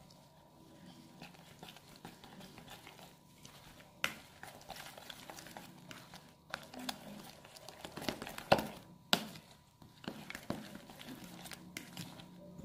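A spoon stirring diced eggplant with raw egg, spices and dill in a plastic bowl: irregular wet scraping, squelching and clicks of the spoon against the bowl, loudest about eight and a half seconds in.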